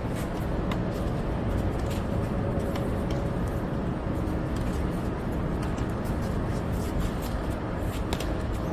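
Tennis rackets striking the ball during a doubles rally, a few sharp pops spread apart, over a steady low rumble.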